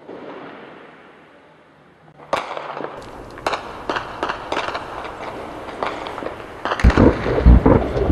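Gunfire in a city: a fading rumble, then a single sharp crack about two seconds in. A run of irregular shots follows and grows denser, and near the end come louder, heavier booming reports.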